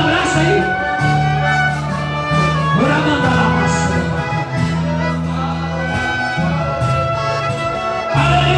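Instrumental music, with long held chords that change every second or two over a steady bass.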